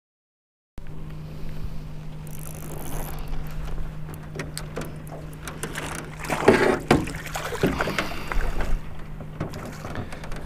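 Sounds aboard a small fishing boat: a steady low hum with scattered sharp knocks and clicks, after a second of dead silence at the start. A louder, rustling stretch comes about six and a half seconds in.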